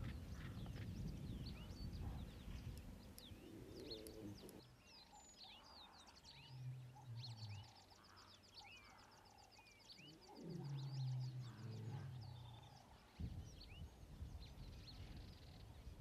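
Lions making low growling calls twice while they groom one another. Birds chirp throughout, and a high rhythmic trill runs through the middle.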